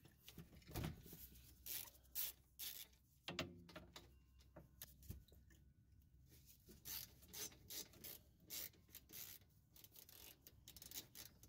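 Faint, scattered clicks and rubbing as a gloved hand handles the rear brake caliper and its bolts.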